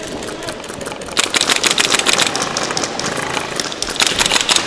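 Airsoft rifles firing full-auto: a rapid burst of clicking shots starting about a second in and lasting nearly two seconds, then another short burst near the end.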